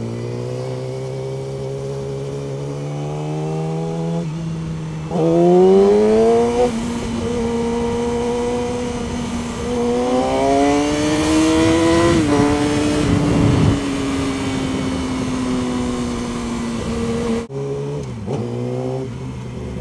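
Yamaha sport bike engine heard from the rider's helmet camera while riding. The engine note rises as the bike accelerates about five seconds in and again around ten seconds, holds steady, then drops suddenly near the end as the throttle closes. A rush of noise swells around the thirteen-second mark.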